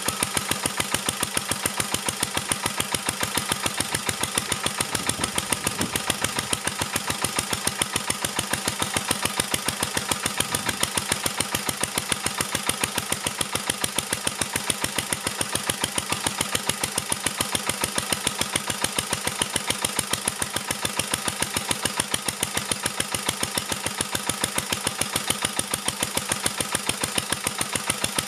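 1949 Petter A1 air-cooled single-cylinder stationary engine running at a steady, even beat while belt-driving a dynamo, under a heavy electrical load from a travel kettle drawing about 550 watts, near the limit of the generator set.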